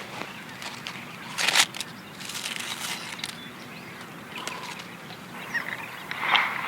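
Birds chirping in the open air, with a short, loud noise about a second and a half in and another near the end.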